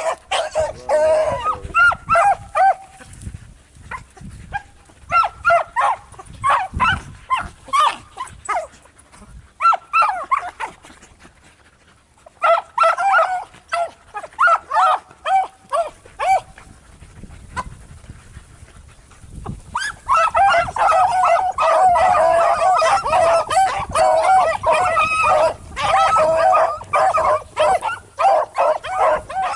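A pack of beagles baying on a rabbit's trail. Bursts of barks come in runs with short pauses at first, then from about twenty seconds in several dogs bay together without a break.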